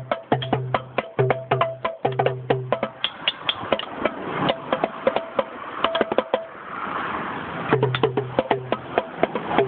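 Small belt-mounted drums being beaten in fast, uneven strikes, several hits a second, with a low steady hum that comes and goes. About seven seconds in, a rushing noise briefly rises under the hits.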